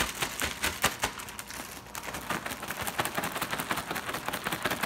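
Zip-top plastic bag full of zucchini sticks and dry fish-fry breading being shaken hard, crinkling and rattling in rapid strokes as the breading coats the zucchini.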